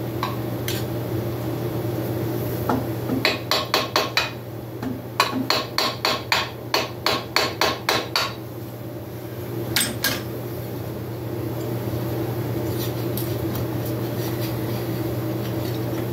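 Sharp taps of a hand tool on the metal of a small two-stroke motorcycle engine's top end. There is a short run of quick taps about three seconds in, a longer run of about a dozen at roughly three or four a second, and one more tap near the middle.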